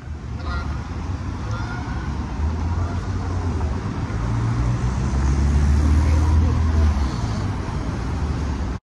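City street traffic: a steady noise of vehicles with a deep rumble that swells in the middle, as if a heavy vehicle were passing close by, and faint voices underneath.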